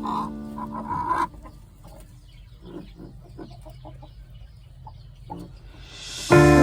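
Short, soft calls of poultry, repeating several times a second. Background music plays for about the first second, and loud piano music comes in near the end.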